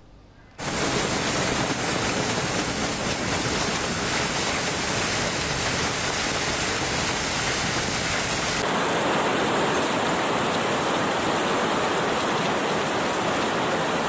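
Hailstorm with heavy rain: a loud, steady, dense hiss of hail and rain pouring down. It starts about half a second in and changes character about nine seconds in, where a second recording of the storm begins.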